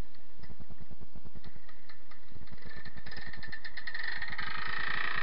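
Paramotor's small two-stroke engine idling with a steady pulsing beat, its sound growing higher and fuller from about halfway as the revs come up.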